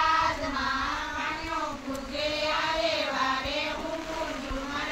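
A high voice singing a Gujarati Gor Maa devotional song in drawn-out, gently wavering notes.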